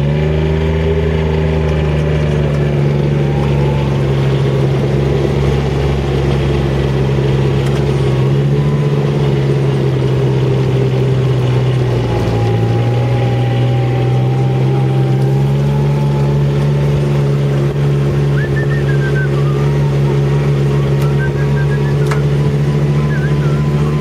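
Vehicle engine running steadily under load, climbing a steep dirt vineyard track. Its pitch drops about halfway through, then picks back up a few seconds later.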